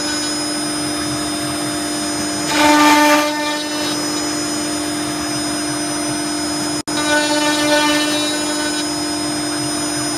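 CNC router spindle running with a steady whine while the bit cuts wood, louder for about a second near the three-second mark. The sound drops out for an instant about seven seconds in.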